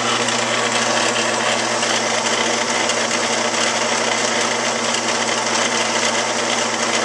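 A 17-inch Delta Rockwell drill press running steadily on its slow-speed attachment, its spindle turning a Morse-taper drill bit slowly without cutting. The motor hums steadily under a broad mechanical whirr from the drive.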